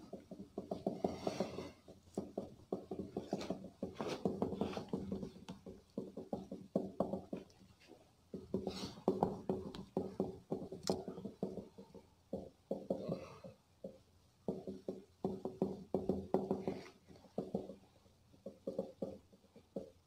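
A cloth rubbing marker off a whiteboard in quick back-and-forth strokes. The strokes come in runs, with short pauses between them.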